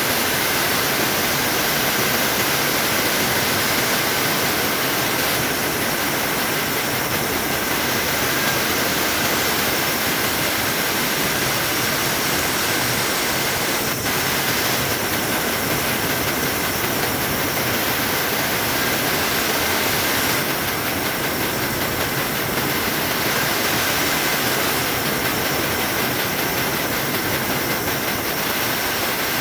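Bandsaw running with its blade cutting through a thick block of wood: a steady, even rushing noise with a faint high whine in it.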